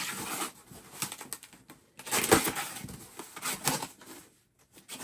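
Blue painter's tape on a cardboard box being cut with a small blade and torn, and the cardboard flaps pulled open: irregular scraping, tearing and crackling with sharp clicks, in several short bouts, the loudest about two seconds in.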